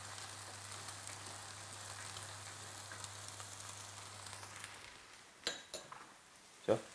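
Olive-oil, Dijon-mustard and grape-vinegar sauce sizzling and bubbling in a hot saucepan as a spoon stirs it, with a low hum underneath. The sizzle cuts off about five seconds in, followed by a few light clicks and a short knock near the end.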